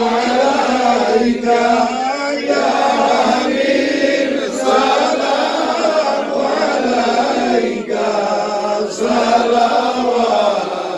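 Men's voices chanting a devotional salam to the Prophet together, unaccompanied, in long drawn-out, wavering notes with brief pauses for breath.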